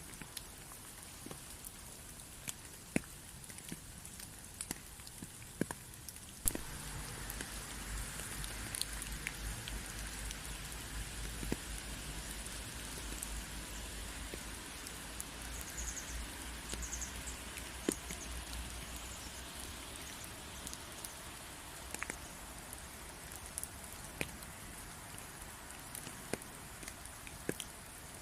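Rain falling steadily, with individual drops ticking sharply now and then. About six seconds in it grows heavier, with a low rumble underneath, and eases off again near the end.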